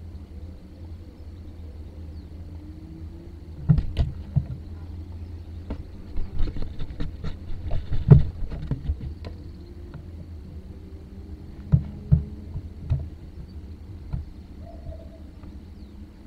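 Outdoor microphone ambience: a steady low hum with scattered soft knocks and clicks, the loudest about four and eight seconds in, and a faint drone slowly rising in pitch through the middle.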